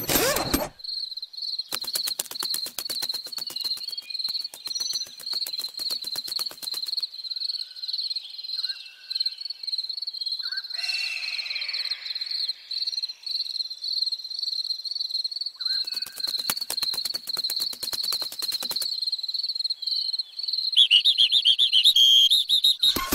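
Cricket chirping steadily, about three high chirps a second. Two stretches of rapid clicking a few seconds long and a short hiss about halfway through are heard over it.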